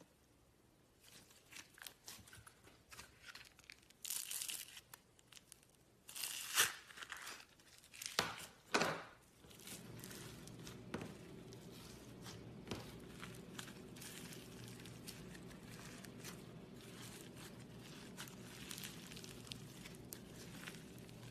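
Slime being stretched and squished by hand, crackling, tearing and popping, with several louder bursts in the first nine seconds. From about nine seconds in, a steady low hum sits underneath many small clicks.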